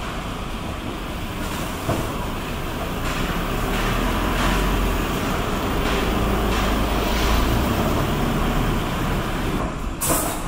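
Street ambience of road traffic: a steady hiss with a low rumble that swells through the middle, and a brief sharp burst of noise near the end.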